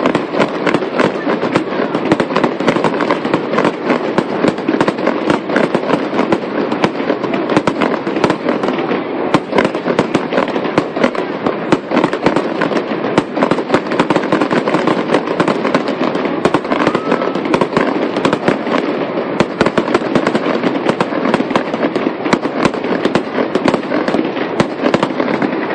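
Fireworks fired from a skyscraper's facade going off in a dense, unbroken barrage of sharp cracks and pops, many per second.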